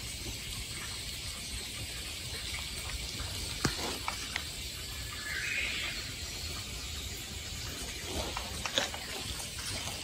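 Faint outdoor forest ambience: a steady soft hiss with a few light clicks, and a brief faint high call about five and a half seconds in.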